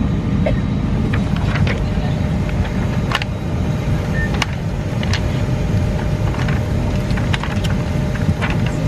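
Steady low rumble of an Airbus A319 airliner cabin, with soft paper rustles and small clicks scattered throughout as magazine pages are handled.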